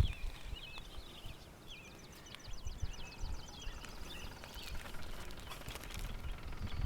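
Birds chirping in the background, with a fast high trill lasting about a second and a half near the start.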